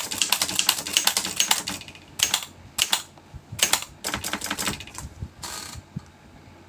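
Tippa Triumph portable typewriter being typed on: a fast run of key strikes for about two seconds, then slower groups of strikes, and a short rasping sound near the end.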